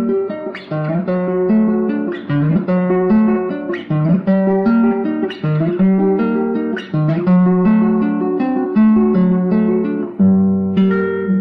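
Solo acoustic guitar playing an instrumental milonga passage: a steady stream of plucked notes over a moving bass line.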